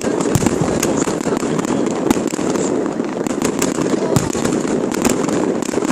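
Fireworks display: a dense, continuous crackle with many sharp bangs, several a second, the loudest about four seconds in.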